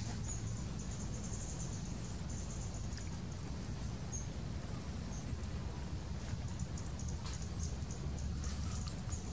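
Outdoor ambience: high-pitched insect chirping in short pulsing runs, with a few thin wavering bird chirps, over a steady low rumble.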